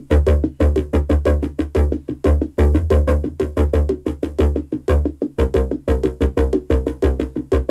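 Synth-driven pop track played through Bowers & Wilkins 805 D3 two-way bookshelf speakers: an instrumental passage with a heavy, pulsing bass under a fast, even percussive beat.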